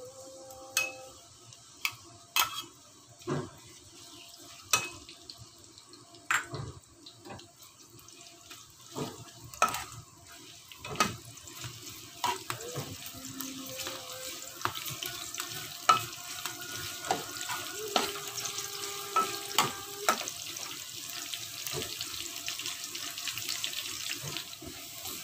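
Sliced shallots frying in a little oil in a wok, the sizzle building up over the second half. Repeated clicks and scrapes of a metal spatula stirring against the pan.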